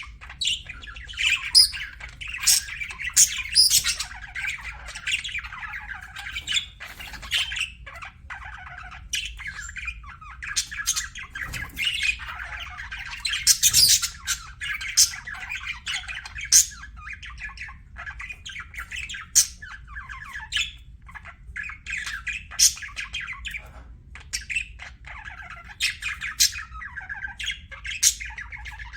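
Budgerigar warbling and chattering: a nearly unbroken run of busy chatter, dotted with sharp, high chirps and squawks, densest about halfway through.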